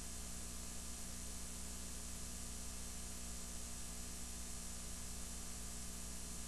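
Steady faint hiss with a low hum: the noise floor of a VHS tape playing past the end of its recording.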